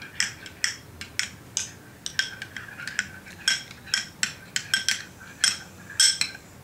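A spoon stirring and repeatedly clinking against the side of a mixing bowl, about two clinks a second, each ringing briefly. The spoon is mixing the slime base of white glue, green food colouring and water.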